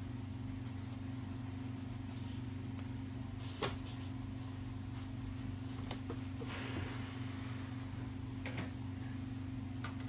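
A steady low hum with a few light knocks and a brief rustle as metal parts and tools are handled on a workbench.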